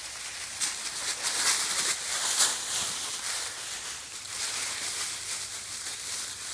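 Dry fallen leaves crunching and rustling under dogs' paws as they run and play, in an irregular patter of crisp crackles, loudest about two and a half seconds in.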